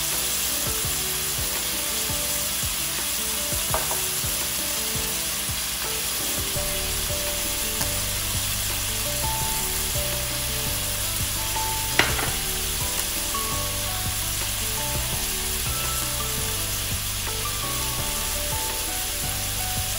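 Fish fillets frying in butter and olive oil in a stainless steel pan, a steady sizzle as the second side cooks. There is a single sharp click about twelve seconds in.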